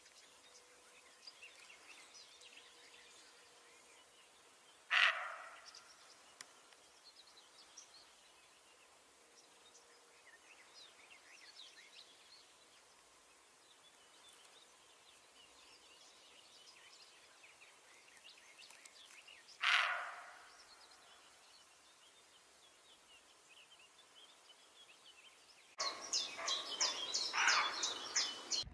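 Roe deer barking: two single loud, harsh barks about fifteen seconds apart, each dying away over about a second, over faint birdsong. Near the end the sound steps up to a louder, rapid chattering.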